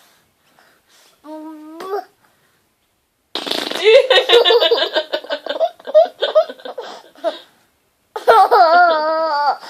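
Mouth-made fart sounds, a child blowing raspberries with the lips, mixed with laughter. A short pitched vocal sound comes about a second in, then a long run of rhythmic laughter from about three seconds in, and a wavering high voice near the end.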